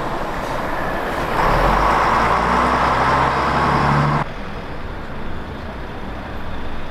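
Road traffic: a bus pulling away, then a dark SUV driving close past with its engine note rising slightly, the loudest part. The sound cuts off suddenly about four seconds in, leaving a quieter outdoor background.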